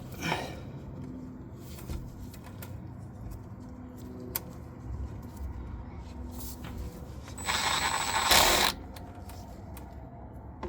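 Hand tools and metal parts being handled, giving scattered small clicks and knocks. About three-quarters of the way through comes a loud hiss lasting about a second.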